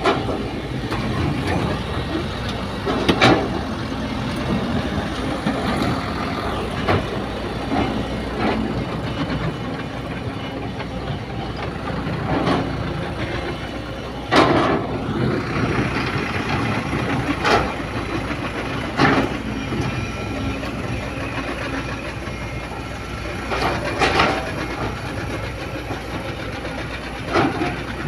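Sumitomo hydraulic excavator's diesel engine running steadily under load while it digs into a soil bank, with sharp knocks every few seconds from the bucket and boom working.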